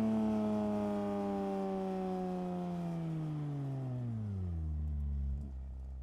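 Porsche 992 GT3's flat-six engine with its revs falling smoothly from high rpm, then settling into a steady low idle about four and a half seconds in.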